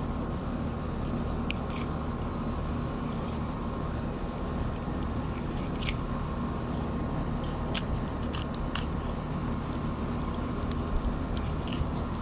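Fillet knife slicing a mullet open along the backbone, with scattered small crunching clicks, over a steady low mechanical hum.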